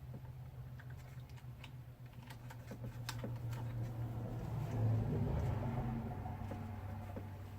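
Small, irregular clicks and taps of hands and a small tool handling the plastic and metal parts of a drone's camera gimbal, most of them between about one and four seconds in, over a steady low hum.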